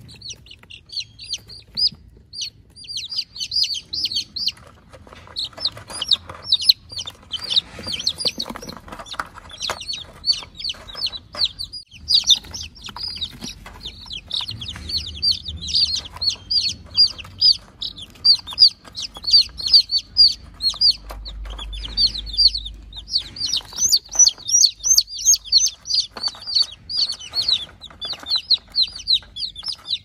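Chicks peeping continuously: a steady stream of short, high, falling peeps, several a second, overlapping one another.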